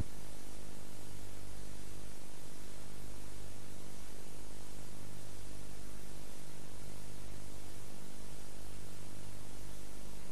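Steady static hiss with a low electrical hum under it: the blank audio track after the programme has ended, with no programme sound.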